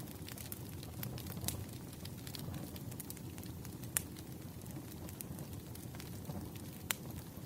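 Campfire burning: a steady low rumble of flames with frequent small crackles and a few sharper pops, the loudest about four seconds in and another near the end.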